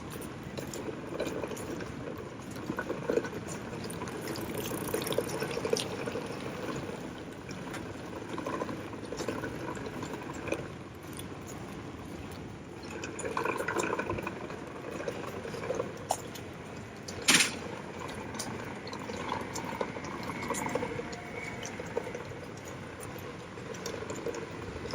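Steady rain on a wet city street, with many small ticks of drops and one sharp click about 17 seconds in.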